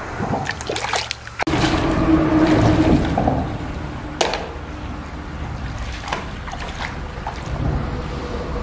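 Shallow river water sloshing and splashing as someone wades and gropes with their hands among the stones, over the steady running of the stream. A single sharp knock about four seconds in.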